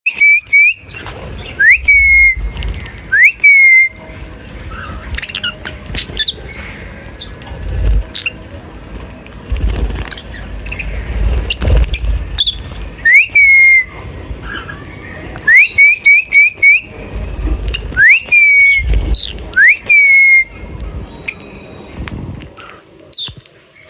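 Birds giving loud whistled calls, each a quick upward sweep into a held, slightly falling note, repeated a dozen or so times with a quick run of them around 16 seconds in. Low rumbling and scattered clicks sit between the calls.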